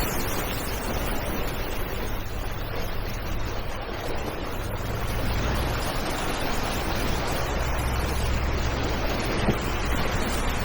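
A vehicle engine drones low under a steady rushing noise of wind on the microphone.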